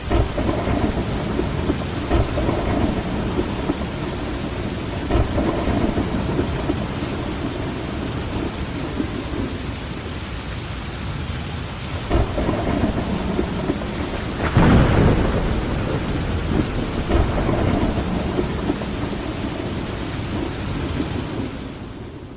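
Steady rain with rolling rumbles of thunder. The loudest rumble comes about two-thirds of the way through, and the whole sound fades down near the end.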